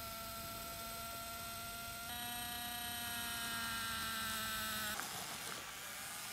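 Small electric drive motors of a homemade RC tractor whining steadily as it drives. About two seconds in the whine steps up in pitch and gets louder, then it slowly sinks. About five seconds in it gives way to a rougher, noisier sound.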